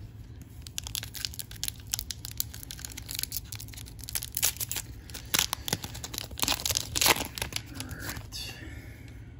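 Foil wrapper of a 2020-21 Upper Deck MVP hockey card pack crinkling and tearing as it is ripped open by hand: a dense run of sharp crackles, with the loudest rips about four and a half and seven seconds in.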